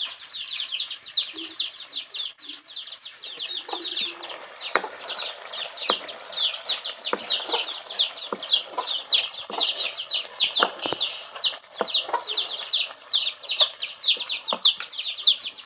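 Domestic chicks peeping steadily in a chorus of short, high, falling peeps, several a second. From about four seconds in there are scattered sharp knocks of a metal ladle stirring ghee in a metal pan.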